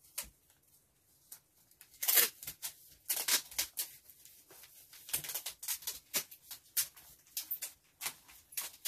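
Brown packing tape pulled off the roll in a series of short rasping strips, the loudest about two seconds in, and pressed down by hand onto a cardboard box.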